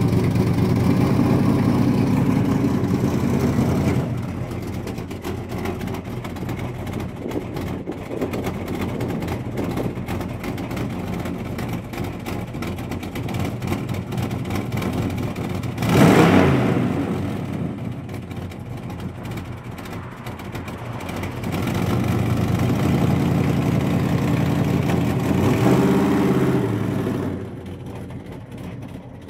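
383 stroker small-block V8 in a Chevy S10 pickup running. It is loud at first, then settles lower, with one sharp rev about halfway through. A longer rev rises in pitch, then the engine fades as the truck pulls away.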